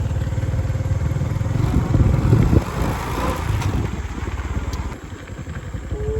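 Small engine running with a steady, fast low chug, louder around two seconds in and easing off about five seconds in.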